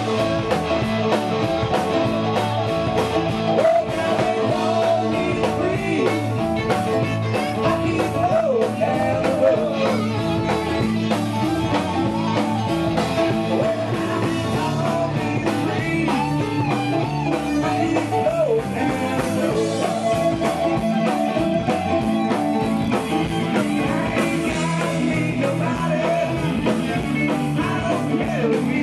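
Rock music with electric guitar and a singing voice over a steady beat.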